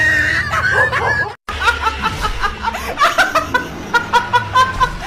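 A young woman laughing hard in quick, repeated peals, about four a second. It starts after an abrupt cut about a second and a half in, which ends a short stretch of higher, gliding sound.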